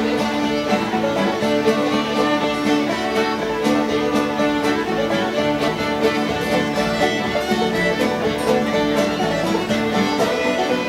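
Live string band playing an instrumental passage in a bluegrass style, with fiddle over banjo and guitar.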